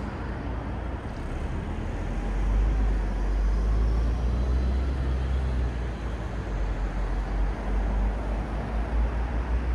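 Road traffic at a city intersection: vehicles passing with a deep engine and tyre rumble that swells about two and a half seconds in and eases after about five seconds.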